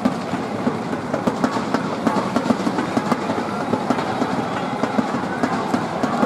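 Stadium crowd clapping: many hands at once, a dense spatter of claps.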